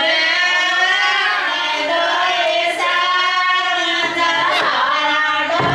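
A high female voice singing a melodic song with long held, sliding notes and no beat behind it.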